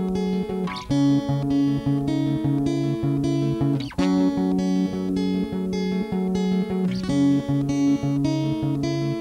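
Music: a guitar picking a repeating pattern of notes, the chord changing about every three seconds, with a short sliding pitch at each change.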